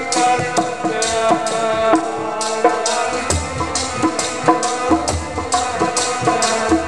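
Harmonium playing a sustained melody over a steady hand-drum rhythm of about two to three strokes a second: the instrumental accompaniment of Sikh kirtan, with no singing.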